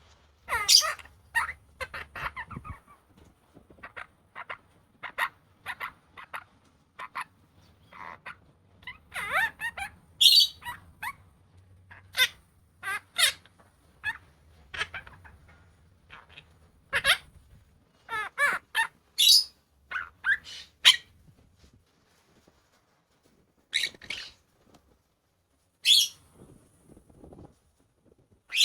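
Monk parakeet calling in many short bursts: chattering chirps and sharp, high squawks, separated by brief pauses.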